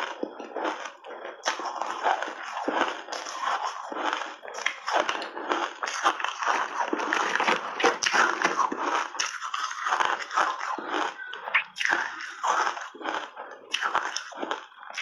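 Ice chunks coated in milk powder being bitten and chewed, close to the microphone: a fast, continuous run of sharp crunches.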